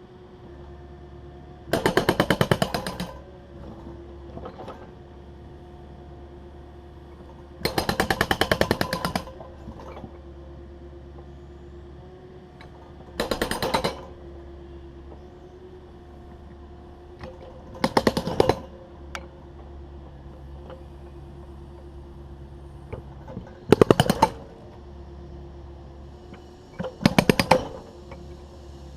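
Excavator-mounted hydraulic breaker hammering concrete in six short bursts of rapid strikes, over the steady running of the digger's diesel engine.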